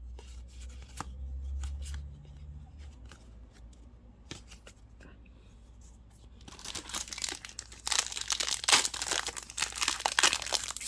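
A Magic: The Gathering draft booster pack's foil wrapper being crinkled and torn open, starting about six and a half seconds in and going on densely to the end. Before that there are only a few light clicks and taps.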